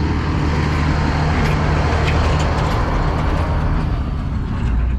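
A car driving, with a steady low engine hum and road noise.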